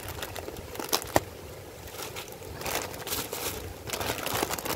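Toy packaging being handled and torn open: irregular crinkling and rustling, with two sharp clicks about a second in.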